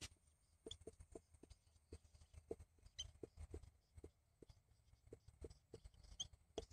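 Marker pen writing on a whiteboard: a string of faint, irregular ticks and taps as the digits are written, with a couple of brief faint squeaks from the marker tip.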